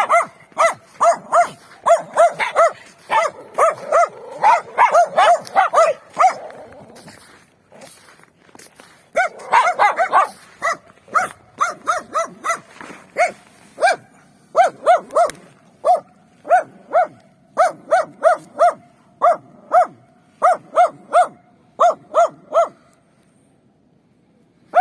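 Dogs barking: at first several barks overlap in a dense, quick volley, then after a short lull one dog barks on its own in a steady rhythm of about two barks a second, stopping shortly before the end.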